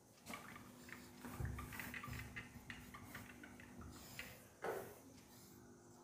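Faint rubbing strokes of an eraser wiping a whiteboard, with a couple of soft low thumps about one and a half and two seconds in.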